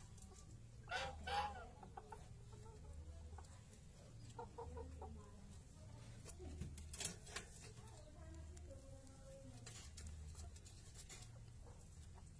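A bird giving short, scattered clucking calls, the loudest pair about a second in, with a few sharp clicks around seven seconds in.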